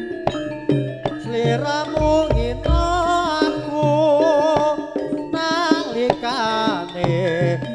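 Live jaranan dance accompaniment: struck pitched percussion and hand-drum strokes under a wavering, ornamented lead melody that comes in about a second in.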